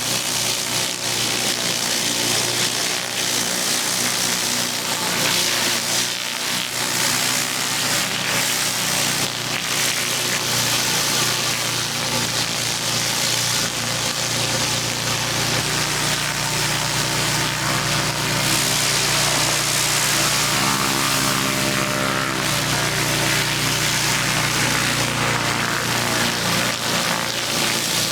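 Gas-engine pressure washer running steadily under load, with the hiss of high-pressure water spraying. The engine's pitch shifts a little past the middle.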